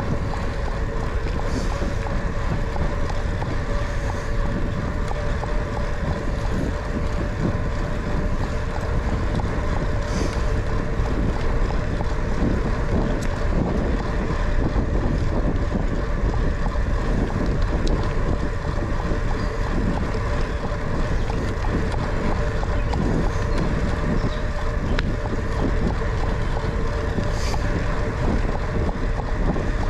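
Wind buffeting the microphone of a bicycle-mounted camera while riding, over the steady rolling noise of bicycle tyres on asphalt, with a steady hum throughout.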